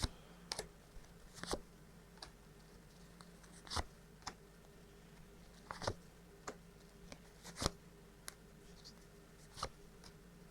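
Tarot cards being handled: about a dozen scattered soft clicks and rustles, over a faint steady room hum.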